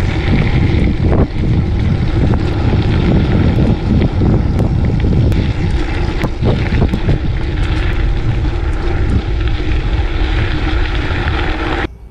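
Wind buffeting the camera's microphone as a gravel bike rides along a dirt track, with a steady tyre rumble and a few sharp rattling clicks over bumps. It cuts off suddenly near the end.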